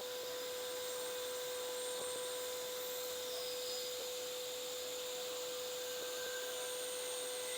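A workshop power tool's electric motor running steadily with no load, giving an even hum with a constant mid-pitched whine and no cutting.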